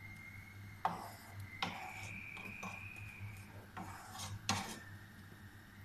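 Wooden spatula stirring and scraping chicken and vegetables in sauce in a frying pan: a few short scrapes and knocks against the pan, over a faint steady high tone.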